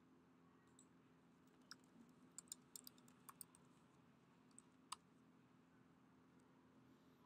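Faint computer keyboard typing: a quick run of keystrokes, then one sharper click about five seconds in, over a low steady hum.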